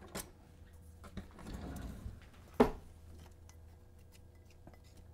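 Faint scraping and light clicks of a spatula working seed-coated vegetable bits out of a glass mixing bowl onto a baking tray, with one sharper tap about halfway through.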